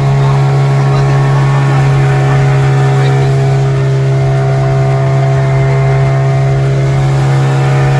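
Small outboard motor on a passenger boat running at a steady cruising speed, a loud, constant drone.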